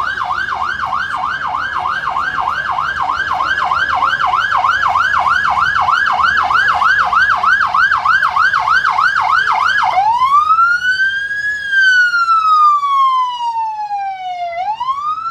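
Fire engine siren sounding a fast warble, about three sweeps a second, then switching about ten seconds in to a slow wail that rises and falls over a few seconds.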